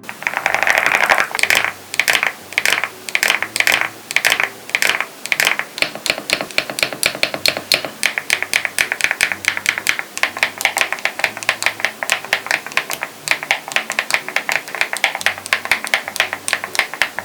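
Typing on a Gravastar Mercury K1 mechanical keyboard: rapid key clicks, a few distinct strokes at first, then a fast, continuous stream of keystrokes.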